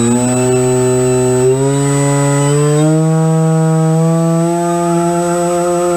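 Electric motor and propeller of a TBS Caipirinha 2 flying wing run up on a bench test, a steady drone that steps up in pitch several times over the first three seconds and then holds.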